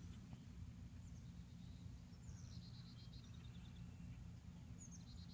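Near silence: a steady low rumble of outdoor ambience, with a few faint bird chirps and short trills about a second in, in the middle and near the end.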